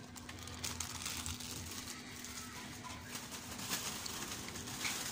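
Faint pigeon cooing over a steady low hum.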